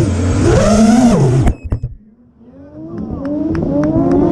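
Drift car engine revving up and down, then cutting off abruptly about a second and a half in with a few sharp clicks. The engine note then builds again in a steady rising rev.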